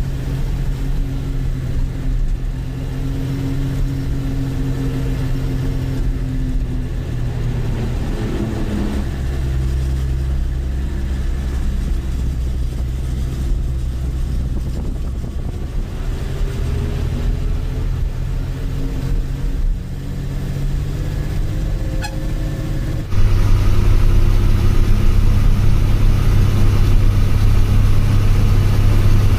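Bus engine running on the move, heard from inside the driver's cabin, its pitch shifting as the bus changes speed. About two-thirds of the way through it suddenly becomes louder and deeper.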